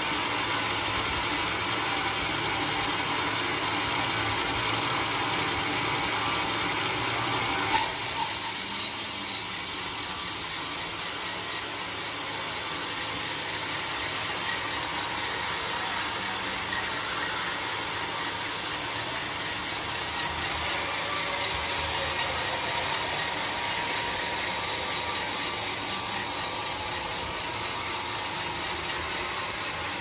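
Homemade bandsaw sawmill running steadily, with a sharp knock about eight seconds in, after which the sound changes.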